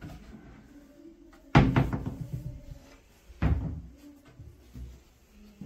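Doors of a two-door flat-pack cabinet being swung shut: a loud knock about a second and a half in with a short rattle after it, a second knock nearly two seconds later, and a fainter one near the end.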